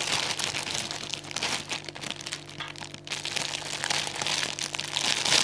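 Clear cellophane wrapping on a gift package of sweets crinkling and rustling as it is handled and pulled at, in a dense run of irregular crackles.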